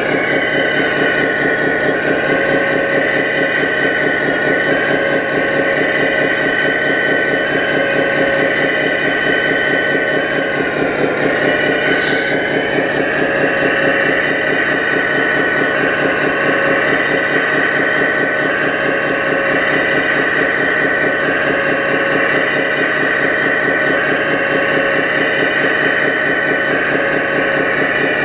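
Radio-controlled Hitachi Zaxis 330 excavator model running steadily while it digs and swings. A constant whine sits over a fast, even pulsing hum, and the whine dips briefly in pitch about ten seconds in.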